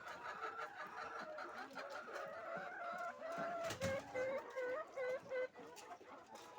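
A flock of laying hens clucking and calling steadily, with a run of about five short, loud clucks between about four and five and a half seconds in. A single short knock comes just before the run.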